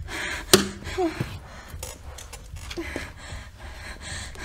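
Quick, heavy panting and gasping breaths, about two a second, with one sharp click about half a second in.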